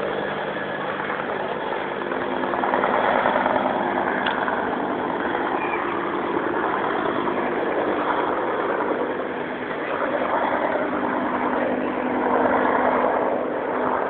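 Helicopter running with steady engine and rotor noise and a thin, constant high whine. The level swells slightly a few times.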